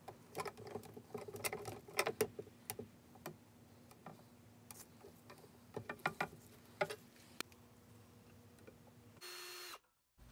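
Steel C-clamp being screwed down by hand onto a wooden board against a steel jig: a run of small, irregular metallic clicks and scrapes from the clamp screw and jaws, thinning out after a few seconds. Near the end a brief steady whine lasts about half a second, then cuts off.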